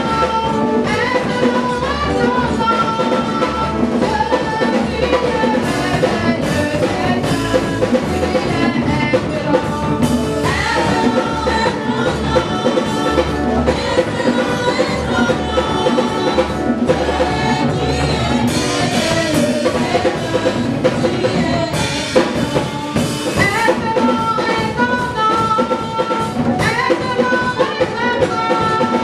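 Live gospel praise song: women singing a lead line and backing vocals over a drum kit and a steady bass beat.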